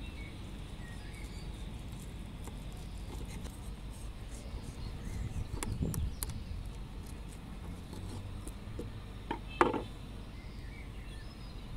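Outdoor background with faint bird chirps. A steel knife clicks a few times against a wooden cutting board as a grilled T-bone steak is cut from its bone, and there is one louder short knock near the end.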